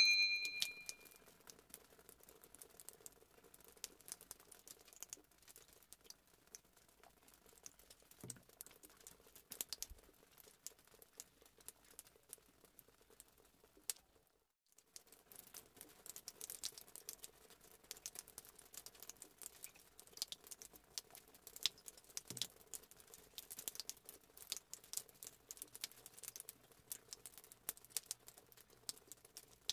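A bright bell-like chime at the very start, fading within about a second: the sound effect of a subscribe-button animation. After it come faint, scattered clicks and crinkles, broken briefly about halfway through.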